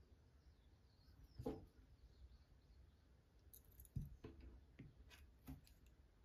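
Near silence with a few faint clicks and light knocks from hands handling small fishing hooks, line and a metal pliers tool; the sharpest click comes about four seconds in.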